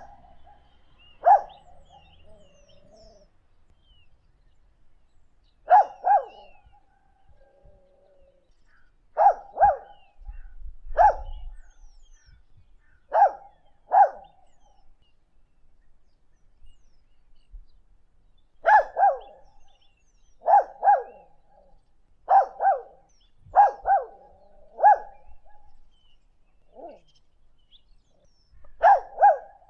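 A dog barking: short, sharp barks, singly or in quick pairs, a few seconds apart, each with a natural echo off the surrounding countryside. Birds chirp faintly between the barks, and there is a little low handling noise on the recorder about ten seconds in.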